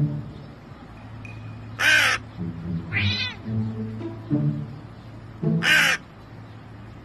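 A crow cawing: two loud, harsh single caws, about two seconds and about six seconds in, with a shorter, wavering call between them, over soft background music.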